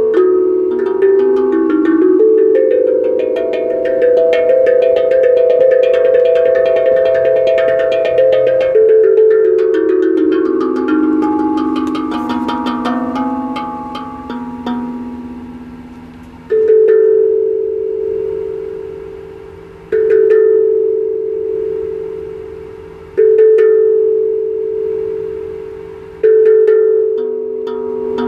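Bell-like ringing tones from an object struck as a percussion instrument: first a run of notes stepping downward in pitch, then four single strikes about three seconds apart, each ringing on and slowly fading.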